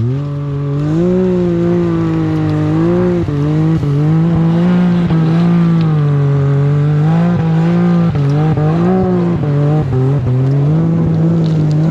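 Side-by-side UTV engine revving up and held at high revs, its pitch wavering up and down, as the machine works its way through deep snow.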